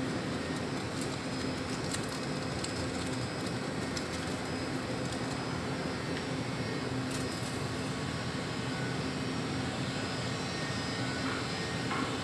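Steady mechanical hum with a constant low tone, under faint crinkling of a plastic wrapper as ash is tipped from it into a glass conical flask; a few soft knocks near the end.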